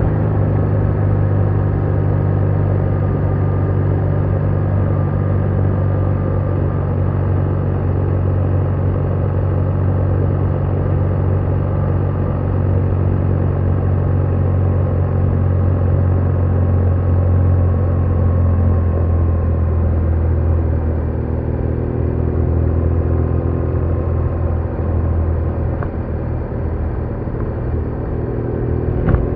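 BMW R1200R boxer-twin engine running steadily at cruise while riding. The engine note eases off a little in pitch and level past the middle, then picks up again near the end.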